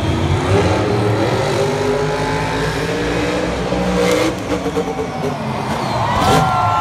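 Monster truck's supercharged V8 revving hard, its pitch climbing for about four seconds through the run-up and jump. The engine drops back just after four seconds, then revs up again near the end.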